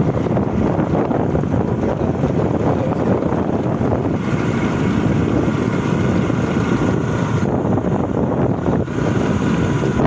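Wind rushing over the microphone of a moving scooter, with the engine running underneath. A faint steady whine joins from about four seconds in and stops near seven and a half.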